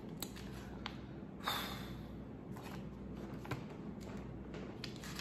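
Paper rustling and light ticks as a booklet is handled and its pages turned, with one longer rustle about a second and a half in, over a faint steady low hum.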